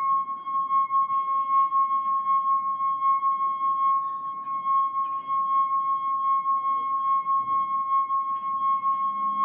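Stemmed wine glass singing as a wet fingertip circles its rim: one steady, clear high ringing tone held without a break, wavering slightly in loudness as the finger goes round. The finger's friction drives the glass at its own resonant frequency.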